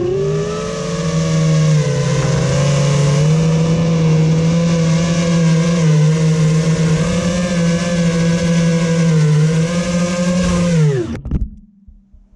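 FPV racing quadcopter's brushless motors whining steadily, the pitch swelling slightly with the throttle. About eleven seconds in, the whine drops sharply in pitch and the motors spool down and stop, with a short clatter.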